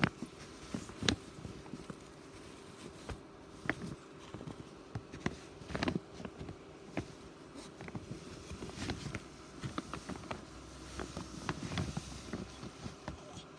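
Irregular soft knocks, clicks and rustling as a phone rubs against a cat's fur and the fabric of the bag it lies in, at about one or two sharper knocks a second.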